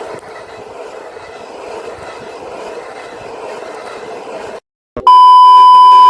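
JLB Racing Cheetah RC car running over rough ground, a steady rushing noise. It cuts off abruptly near the end, and a loud, steady electronic beep follows for about a second.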